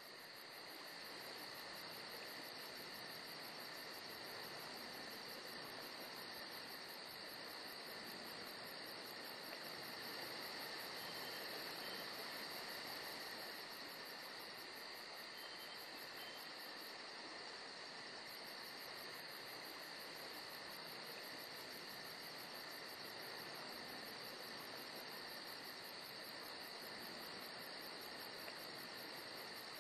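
Faint, steady chorus of insects chirring, with a very rapid, high-pitched pulsing trill above it that drops out for a moment past the middle.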